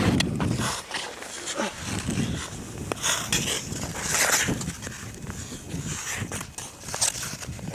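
Ice skate blades scraping and knocking on clear river ice as a skater shuffles and pushes off. The scrapes come in irregular bursts, strongest a few seconds in, with low thuds between them.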